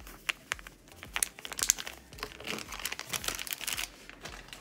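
Plastic packaging crinkling and crackling as it is handled, with a quick run of sharp crackles that is busiest in the middle seconds.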